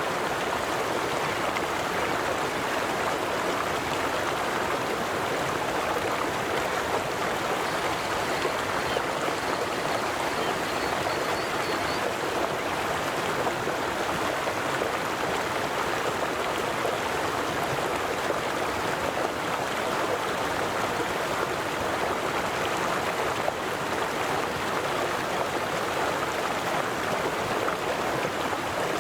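Steady rush of a flowing river or stream, water running and churning without pause.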